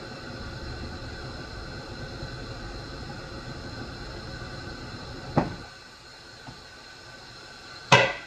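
Metal spoon stirring and scraping around a saucepan of liquid on the stove, a steady low scraping noise. It stops about five and a half seconds in with a knock of the spoon on the pot. Near the end the spoon clatters down onto a plate.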